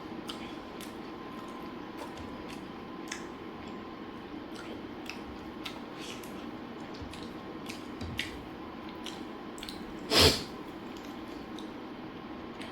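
Mouth sounds of someone eating: scattered small clicks and smacks of chewing over a steady low hum, with one much louder short burst about ten seconds in.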